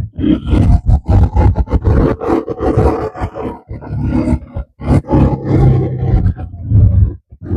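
Strong wind buffeting the microphone in irregular gusts, with an ATV engine revving underneath.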